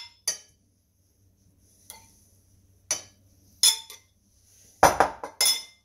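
A metal cooking spoon clinks sharply against ceramic dishes as roasted vegetables are spooned onto a plate: single clinks spaced about a second apart, then a louder quick cluster of three near the end.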